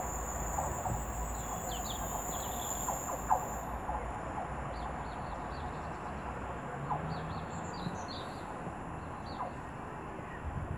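Small birds chirping in short, scattered calls over the low rumble of a West Midlands Railway Class 172 Turbostar diesel unit pulling away into the distance. The rumble fades as it goes, and a steady high whine cuts off about four seconds in.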